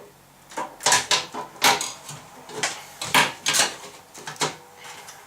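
A string of irregular sharp clicks and knocks, about eight in all, from a hard drive being handled and fitted into the drive bay of a computer case.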